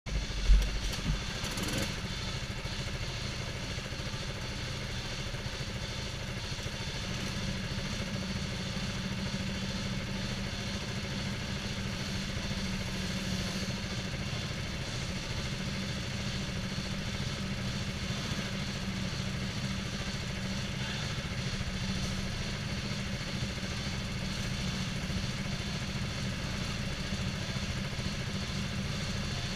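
Go-kart engines idling in the pit lane, a steady low drone that does not change. A thump on the helmet-mounted camera about half a second in.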